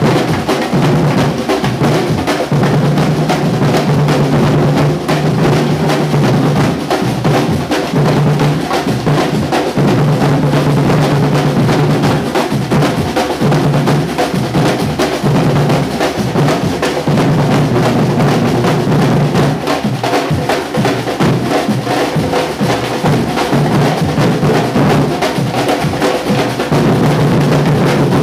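Afro-Brazilian percussion ensemble playing a batuque: loud, continuous drumming, with deep bass-drum strokes pulsing under rapid higher drum strikes.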